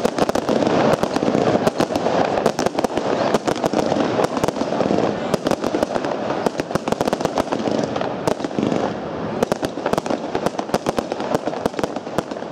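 Black Smith Tiger Claw firework cake firing: many sharp shots and breaks in quick, overlapping succession over a dense continuous noise, thinning slightly near the end.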